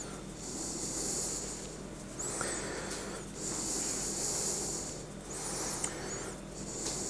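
Fine-mesh sieve shaken over a cake to dust it with icing sugar: soft high hissing in spells of a second or so, about every three seconds, with faint thin squeaks between.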